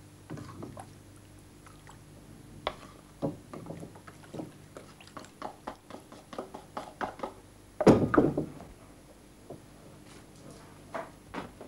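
Thin rice congee poured from a clay pot into bowls, with a string of small knocks and scrapes from the pot and a wooden spoon. The loudest knock, about eight seconds in, is the pot being set down.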